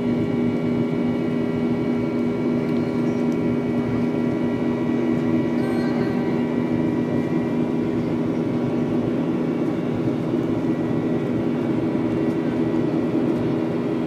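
Airliner engine and airflow noise heard inside the passenger cabin during the climb shortly after takeoff: a steady rushing noise with a constant low hum and several fixed higher tones, unchanging throughout.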